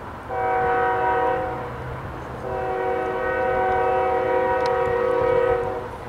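Air horn of a CSX GE Evolution-series diesel locomotive: a short blast, then a longer one about two seconds later, over the low rumble of the train.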